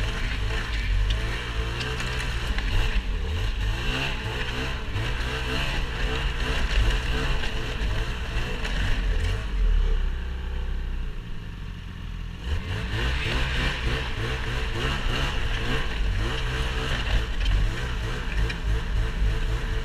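A motor's engine running steadily under load, its pitch wavering. It eases off around ten seconds in and picks up again a couple of seconds later.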